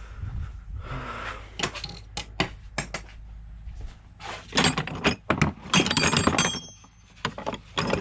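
Metal sockets and hand tools clinking and clattering against each other as sockets are sorted through, with a dense, loud run of clinks about halfway through.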